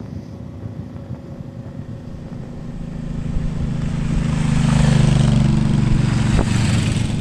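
Motorcycle engine running under way with wind noise, growing louder through the first five seconds and easing slightly near the end.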